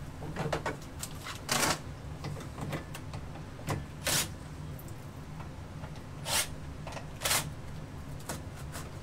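Short rustling and clattering handling noises, five or so louder ones a second or two apart among smaller clicks, as tools and drain fittings are handled behind the laundry sink. A low steady hum runs underneath.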